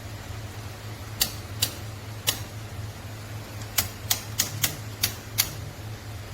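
A series of sharp clicks, nine in all and irregularly spaced, from handling a Cuisinart burr coffee grinder's controls or parts, over a low steady hum.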